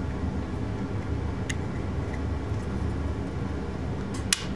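A steady low mechanical hum in the background, with small plastic clicks as a turn-signal relay and its plastic cover are handled: one faint click about a second and a half in, and two sharp clicks near the end.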